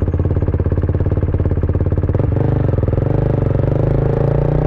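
KTM RC sport bike's single-cylinder engine running under way, with a pulsing exhaust note. The note changes about two seconds in, then the revs climb slowly.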